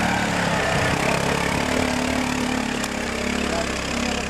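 Quad bike (ATV) engine running at low revs close by, a steady idle-like sound with small changes in pitch.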